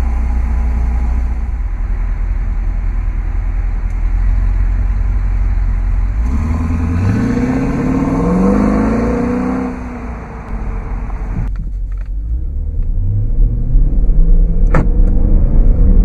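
Dodge Durango's 5.7-litre HEMI V8 exhaust idling with a steady low rumble, then revving with rising pitch as the SUV accelerates away and fading into the distance. After that it is heard from inside the cabin, climbing in pitch and growing louder under acceleration near the end.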